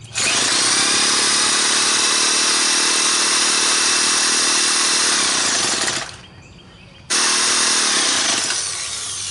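Electric drill with a starter bit spinning a two-stroke string trimmer's engine over through its electric-start socket. It runs in two bursts: about six seconds, a second's pause, then a shorter run that fades away. The engine doesn't catch: it is lacking in compression, and the owner thinks he flooded it.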